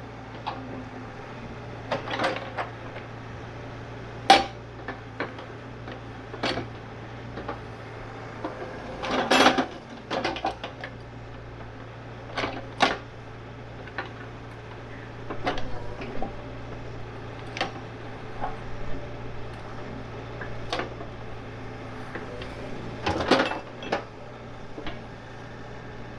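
Excavator running steadily at work, with irregular metallic clanks and knocks from the bucket and linkage; the loudest come about 4, 9 and 23 seconds in.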